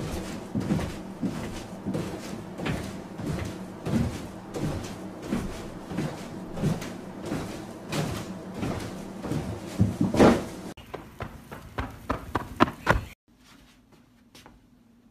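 Mini trampoline thumping and creaking in a steady rhythm as someone in a bulky mascot costume bounces on it, about three bounces every two seconds, with one louder thud about ten seconds in. The bouncing cuts off abruptly about thirteen seconds in.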